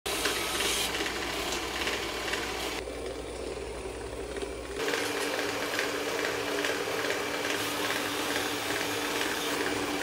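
Roborock Saros Z70 robot vacuum with a robotic arm running: a steady mechanical whir from its motors, with faint regular clicking, as the arm carries a sock and drops it into a box. The sound shifts abruptly twice, about three and five seconds in.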